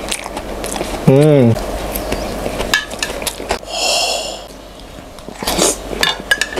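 Close-miked mukbang eating sounds: a metal spoon clicking against an enamel plate and wet chewing of steamed dumplings. A loud short hummed tone rises and falls about a second in, and chili sauce is poured with a brief hiss near the middle.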